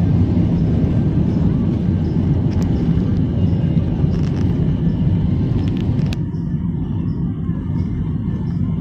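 Jet airliner's engines at takeoff power heard from inside the cabin, a loud steady rumble as the plane lifts off and climbs. A sharp click sounds about six seconds in, after which the higher hiss thins out.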